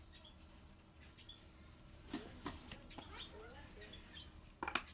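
A phone's retail box and its seal being handled and opened: a few short sharp rustles and clicks, the loudest near the end, with small birds chirping in the background.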